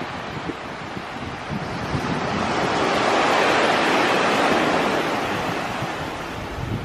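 A rushing roar in the sky, the strange sound the recording was made for. It swells to its loudest midway and then slowly fades.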